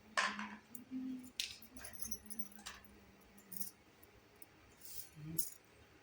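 Small pieces of a miniature toy kitchen set being handled and set down: a series of light clicks and clinks, the loudest just after the start.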